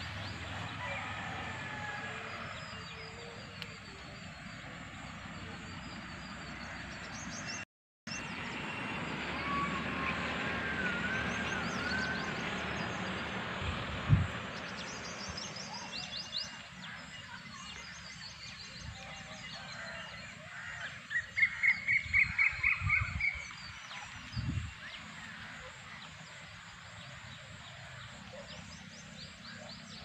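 Outdoor birdsong: birds chirping and whistling throughout, with a loud, rapid run of about ten repeated calls about two-thirds of the way through. A couple of low thumps are heard, and the sound cuts out briefly near the start.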